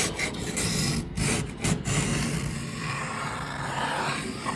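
A flat-bladed hand scraper rasping thick frost and ice off the inside edge of a front door: a few short strokes, then a longer continuous scrape. The frost has formed from bitter cold seeping in from outside.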